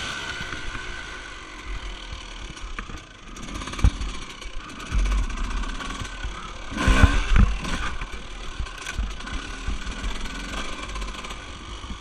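Off-road vehicle engine running during a ride on a dirt track, under a heavy low rumble, with several knocks; the loudest cluster comes about seven seconds in.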